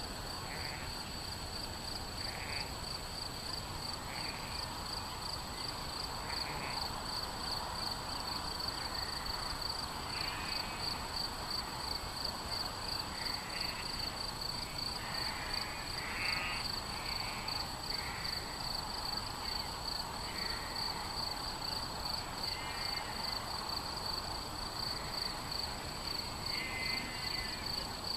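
Crickets chirping in a continuous, rapidly pulsing high trill, with short bird calls every couple of seconds over it.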